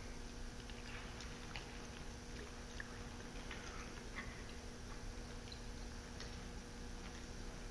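Faint scattered clicks and ticks from a ridden horse and its tack, over a steady low hum.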